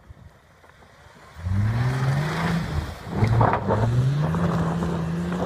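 Mercedes-Benz ML350's V6 engine revving hard under throttle, starting about a second and a half in. Its pitch climbs, eases off briefly about three seconds in, then climbs again and holds high while the wheels spin and throw snow.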